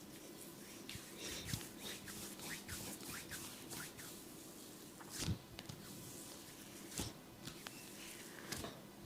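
Hands massaging and scratching an oiled scalp and hair: soft scratchy rustling and small clicks, with a sharper, louder click just past five seconds and two more near seven and eight and a half seconds.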